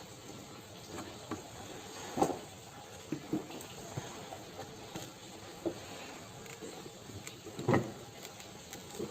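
Scattered light knocks, clicks and rustles of an item being handled, over a steady hiss, with two louder knocks about two seconds in and near the end.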